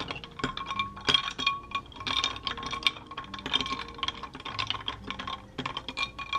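Long spoon stirring ice cubes in a tall drinking glass: quick, irregular clinks against the ice and the glass, each leaving a short glassy ring, with a brief pause near the end.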